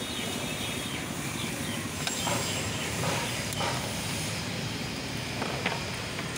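Steady hiss of an LPG gas burner heating a hand-held sandwich toaster, over a background of street traffic, with a few light clicks along the way.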